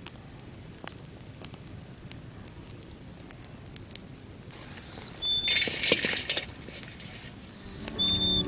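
Wood fire crackling with scattered sharp pops. Twice, about 5 s and 7.5 s in, a louder burst of hiss comes with a short high two-note whistle.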